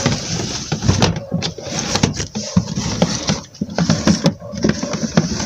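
Irregular knocks, scrapes and rustling as objects are moved by hand and set down on a tiled floor.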